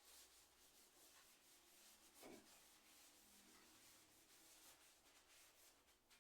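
Near silence with faint, short rubbing strokes. One louder stroke falls in pitch a little over two seconds in.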